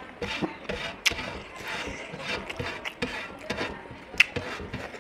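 Close-up eating sounds of a chicken-wing curry and rice meal: chewing with irregular clicks, smacks and crackles. The sharpest click comes about four seconds in.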